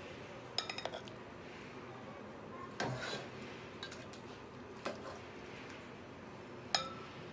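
Serving utensil clinking against a metal pan and a glass bowl as pieces of cooked mutton curry are lifted into the bowl: about four separate clatters, the last one with a short ring.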